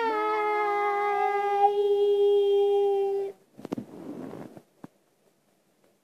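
A child's voice holding one long, steady note for about three seconds. Then rustling and knocks from a hand handling and covering the camera's microphone, with a sharp click.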